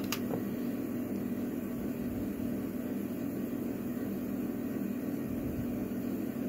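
Steady low background hum, like a fan or air conditioner running, with one light click just after the start.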